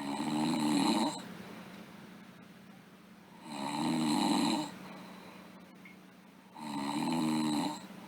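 A girl snoring in her sleep: three pitched snores, each about a second long, coming about every three seconds, with quiet breathing between them.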